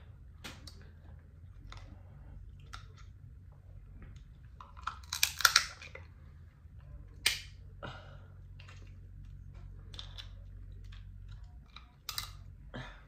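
Dungeness crab shell being cracked, picked apart and bitten by hand while eating: scattered sharp cracks and clicks with wet chewing. The loudest cluster of cracking comes about five seconds in. A low steady hum runs underneath.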